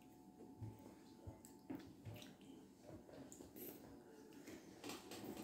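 Faint wet mouth sounds of children licking and sucking on ice pops, with a few soft clicks scattered through.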